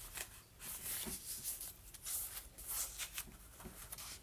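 Paper rustling and light taps as the cards and pages of a junk journal are handled, irregular and fairly soft.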